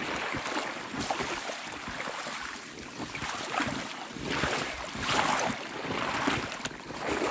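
Boots wading through shallow meltwater and breaking thin surface ice, sloshing and crunching in repeated surges with each step.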